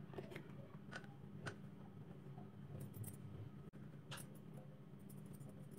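A few faint, irregular clicks and taps as a small lid is pressed down through thinly rolled dough onto a steel plate, cutting out puri rounds one after another.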